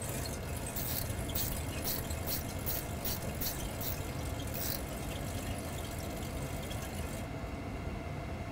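A Boeing 737's mode control panel selector knob is turned in a run of light, irregular clicks over the first four or five seconds as the selected speed is wound up to 220 knots. Under the clicks runs the flight deck's steady hum with a faint high whine.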